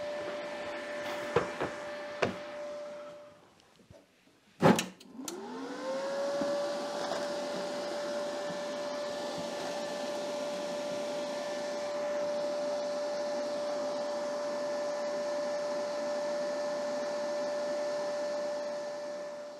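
Cooling fan of an R-Tech 180 A inverter MIG welder running with a steady whine. It breaks off briefly; after a click about four and a half seconds in, the fan spins up again, its whine rising in pitch, then settles steady.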